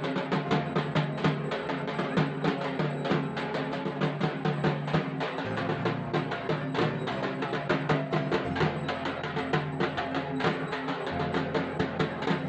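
Music with a fast, steady drum beat over sustained tones, its bass line shifting note every few seconds.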